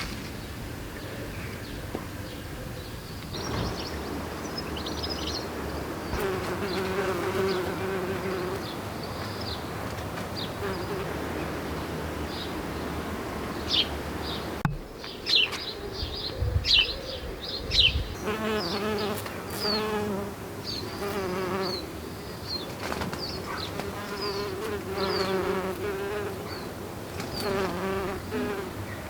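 Bees buzzing close by, the drone swelling and fading as they move between flowers, with small birds chirping. A few dull bumps near the middle.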